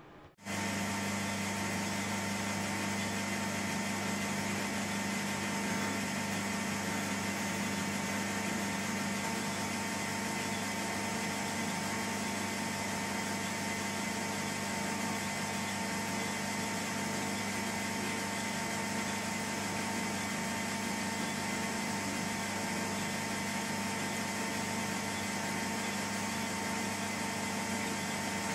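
Small metal-turning lathe running at a steady speed, a constant hum with a steady high whine, while a bronze part is turned in its chuck.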